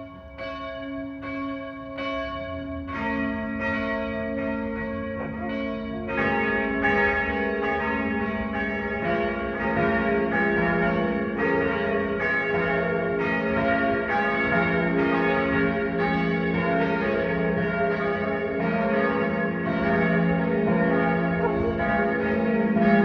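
Church bells ringing for the evening: one bell swinging and striking at an even pace, a second bell joining about three seconds in, then more bells about six seconds in, building into a full peal that grows louder.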